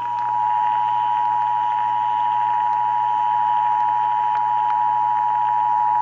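Emergency Alert System attention signal: a steady two-tone alarm at 853 and 960 Hz played through a portable radio's speaker. It cuts off abruptly right at the end.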